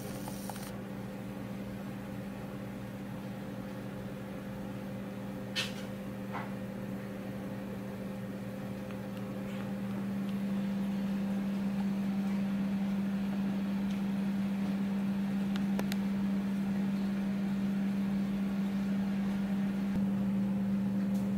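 Steady low machine hum, growing louder about ten seconds in, with two light clicks about five and a half and six seconds in.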